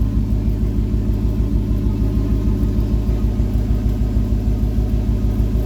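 Audi RS4 with a rear-mounted turbo and revised downpipe, its exhaust in the loud sport mode, running at a steady idle: a deep, even rumble with a regular pulse and no revving.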